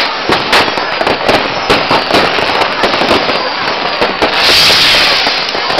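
Fireworks and firecrackers going off all around: rapid, irregular bangs over a dense crackle, with a loud hiss lasting about a second some four seconds in.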